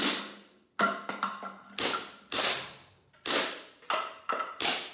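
Airsoft guns firing: about eight sharp shots at irregular intervals, each with a fading tail.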